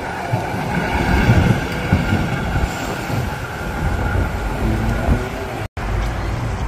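Street traffic noise with wind rumbling on the microphone, a steady low roar with a faint whine through it. The sound cuts out for an instant near the end.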